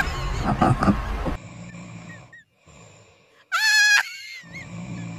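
A noisy stretch cuts off about a second and a half in. A few seconds later comes a single loud animal call, about half a second long, with a wavering pitch.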